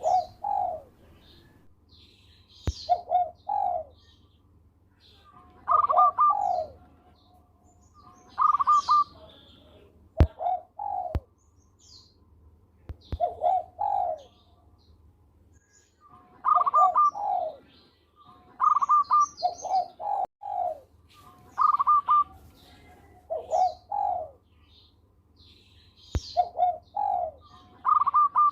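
Zebra dove (perkutut) cooing its song over and over: phrases of several quick, rolling coos repeating every two to three seconds. Smaller birds chirp faintly and higher in the background, and a few sharp clicks break in, the loudest about ten seconds in.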